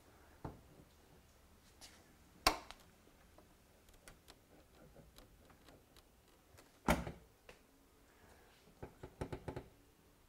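Hands handling a car's hood and front grille: a few sharp clicks, a duller thud about seven seconds in, and a quick run of light ticks near the end.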